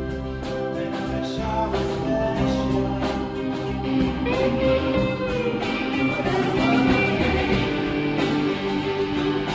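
Live song performance: guitar played to a steady beat, with a singing voice.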